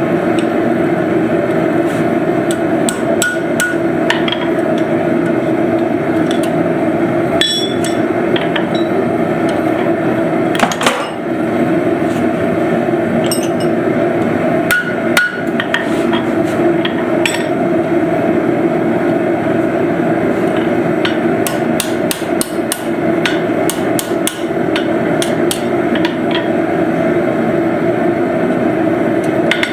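Hammer blows ringing on hot steel at an anvil while forging tongs, struck irregularly with a denser run of strikes past the middle. A loud steady drone runs underneath throughout.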